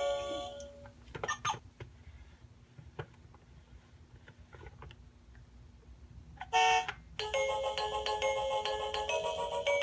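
Baby Einstein Driving Tunes toy steering wheel: its electronic melody fades out in the first second, followed by a few scattered clicks while the wheel is being handled. About six and a half seconds in comes a short, loud electronic sound, and a new melody of short electronic notes starts straight after, triggered by a button press.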